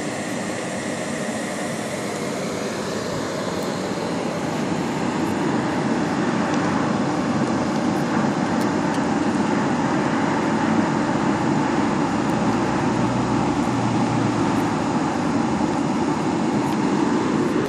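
Hair dryer forcing air through a pipe into a coal fire in a roof-tile furnace: a steady rushing blower noise with the fanned fire, growing a little louder over the first few seconds.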